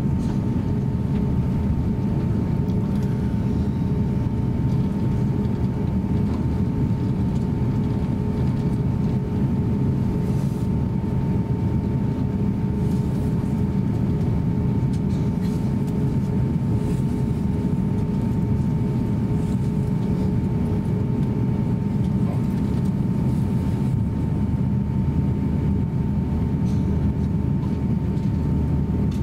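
Inside the cabin of an Airbus A350-900 taxiing: a steady, even drone from its Rolls-Royce Trent XWB engines at taxi power and the cabin air system, with a steady mid-pitched whine on top.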